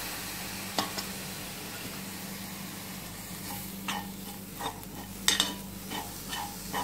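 Grated coconut filling with fried raisins and cashews sizzling softly in a steel pan just after a splash of milk. A spoon stirs it and scrapes the pan bottom in short strokes from about halfway through.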